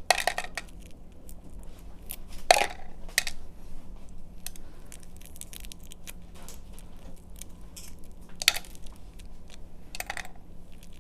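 Shell of a soft-boiled egg being cracked and peeled by hand: a few sharp taps and cracks, the strongest about two and a half seconds in, with faint crackling of shell between them.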